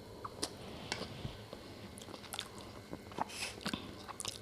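Close-up chewing of spicy chilli-powder rice, with irregular faint clicks and smacks.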